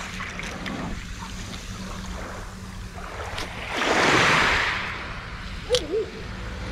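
Small sea waves washing on the shore, one wave surging up and fading away about four seconds in, over a steady wind rumble on the microphone. A short sharp click comes near the end.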